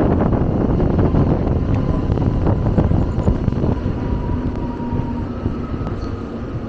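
Passenger train running along the track, heard from on board: a steady rumble with many rattles and knocks, slowly easing off, with a faint high whine coming in about halfway.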